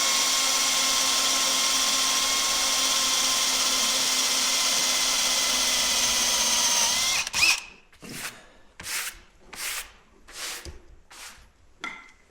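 Electric drill running at steady speed with a whining tone, boring a screw hole through a whisky barrel's steel hoop, then stopping abruptly about seven seconds in. After it come about seven short scratchy strokes, a little under a second apart.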